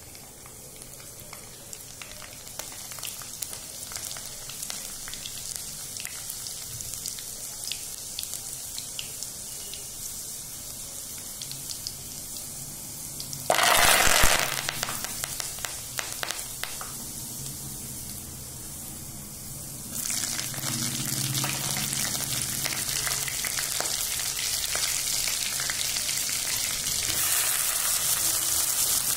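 Cumin seeds crackling and sizzling in hot oil, slowly growing louder. About 13 seconds in a loud burst of sizzling flares up as green chillies and garlic hit the oil. About 20 seconds in the sizzle swells again as chopped onions are added.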